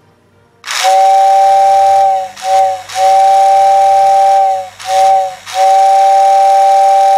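Electric toy-train whistle from a 1980s Lionel transformer: a motor-driven turbine blowing air through a two-outlet chamber, sounding a steady two-note chord over an airy hiss. It blows in five blasts, long, short, long, short, long, switched on and off by hand, and it works well.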